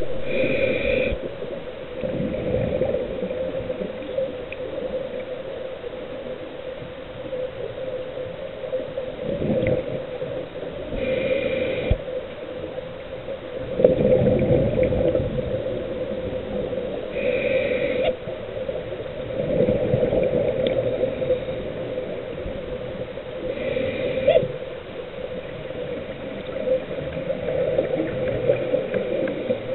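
Scuba diver breathing through a regulator underwater: a short hissing inhale and then a longer bubbling exhale, several breaths a few seconds apart, over a steady low hum.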